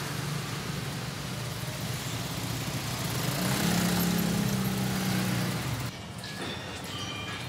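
Minibus engine running in street traffic, heard from inside the cabin: a steady low drone over road noise that grows louder midway, then cuts off about six seconds in to a quieter background.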